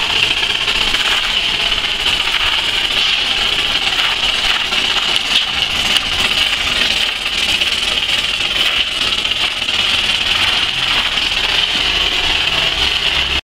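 Texture spray gun blasting chapisco (cement roughcast) onto a wall through a 7 mm nozzle, fed by a mortar-spraying machine with an air compressor: a steady, loud hiss with a machine rumble underneath. It cuts off suddenly near the end.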